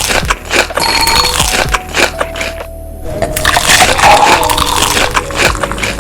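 Crunchy food being bitten and chewed close to the microphone, a dense run of loud crackling crunches, over background music.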